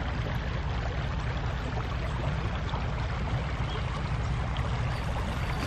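Creek water flowing, a steady even rush.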